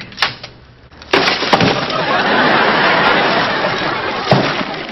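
A metal locker door clicks open, then about a second in a studio audience bursts into laughter that lasts a few seconds and fades near the end.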